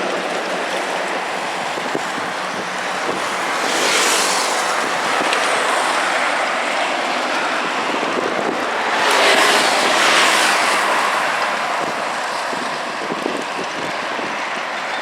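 City street traffic: a steady wash of tyre and engine noise from cars and trucks, with a vehicle passing close about four seconds in and another, louder and longer, around nine to ten seconds in.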